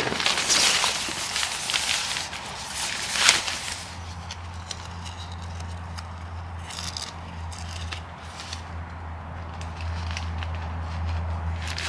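Nylon rainfly fabric rustling and swishing as it is pulled over a pop-up tent's frame, loudest in the first few seconds with a sharp swish about three seconds in. From about four seconds in, lighter rustles continue over a low steady hum.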